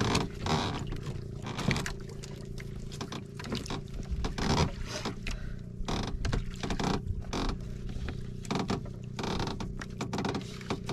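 Steady low drone of a boat engine running, with irregular knocks and splashes of water against the hull.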